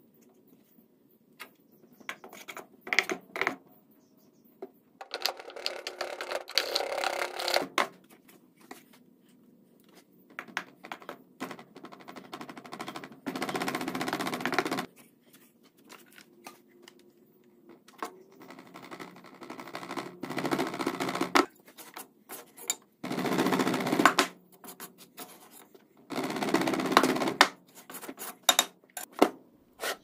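Foundry molding sand being packed and worked by hand around a pattern: a series of gritty scraping and rustling passages, each one to three seconds long, with scattered knocks between them.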